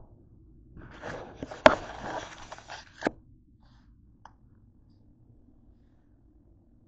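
Plastic ketchup packets being handled and gathered up: a crinkling rustle lasting about two seconds, with a sharp click in the middle and another as it stops.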